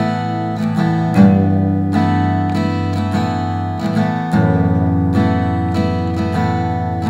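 Background music of acoustic guitar strumming chords in a steady rhythm, changing chord about a second in and again after four seconds.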